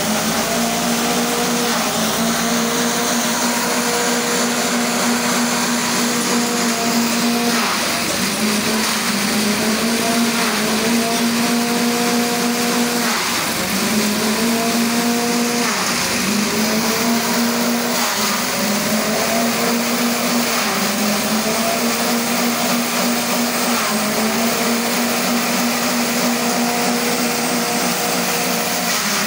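Grass chopper driven by a small engine running fast and steady, with a constant hiss of stalks being shredded. The engine pitch sags briefly and recovers every two to three seconds as bundles of stalks are fed into the blades and load it down.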